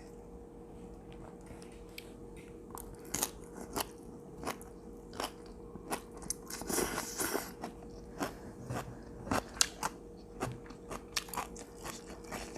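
Close-miked biting and chewing of crunchy food: sharp crunches and mouth clicks, sparse at first, coming often from about three seconds in, with a longer crunching stretch around seven seconds.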